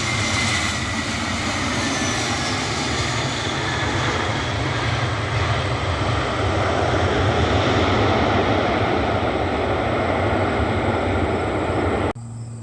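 Airbus A321neo airliner's jet engines passing close on arrival: a whine that falls in pitch over the first few seconds above a steady rush, swelling a little midway and cutting off suddenly near the end.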